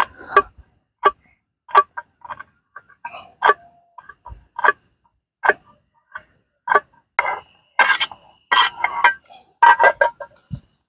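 Knife slicing chili peppers on an aluminium mess tin, each cut ending in a sharp click of the blade against the metal, about one or two a second. About seven seconds in the clicks turn into a quicker clatter of blade and tin.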